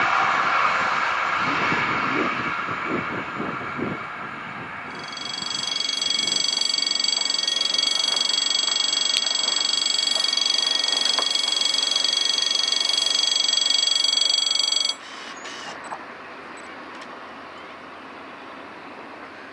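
A passing train's running noise fading away over the first few seconds. Then a steady high-pitched ringing alarm starts about five seconds in and cuts off abruptly about fifteen seconds in.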